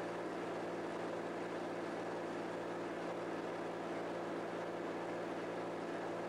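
Raptor aircraft's diesel engine running steadily at low power, an even hum with a constant low tone, while its oil warms up ahead of a full-power run-up.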